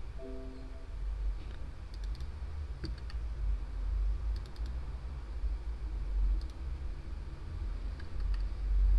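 Computer mouse clicking a few times, several of them quick double-clicks, over a low steady rumble, with a short hum just after the start.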